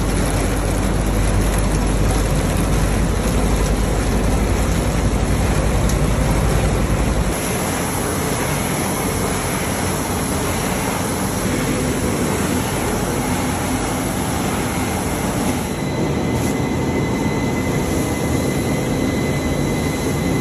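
Steady factory machinery noise from a puffed corn ring snack line: conveyor, rotating drum and mixer running, with no voices. A deep rumble in the first seven seconds gives way abruptly to a lighter, hissier machine noise, which changes again about three-quarters of the way through.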